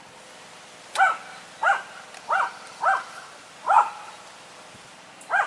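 A dog barking in the background, six short barks in a quick, even run starting about a second in.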